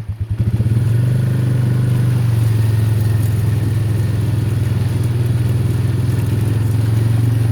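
Vehicle engine picking up from a pulsing idle about half a second in, then running at a steady speed with a constant low drone.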